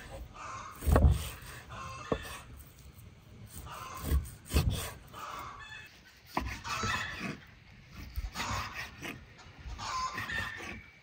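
A knife cutting raw beef into cubes and knocking against a wooden chopping board: a handful of dull knocks, the loudest about a second in and near the middle. Chickens cluck in the background, mostly in the second half.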